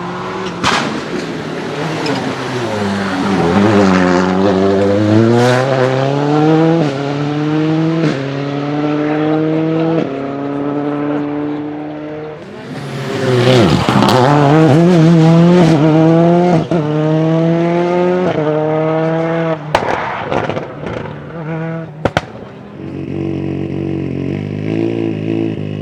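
Škoda Octavia WRC rally cars' turbocharged four-cylinder engines driven flat out: twice a car passes with its pitch falling, then pulls away climbing through the gears in quick upshifts. A few sharp backfire cracks from the anti-lag system come near the end, followed by a steadier engine note.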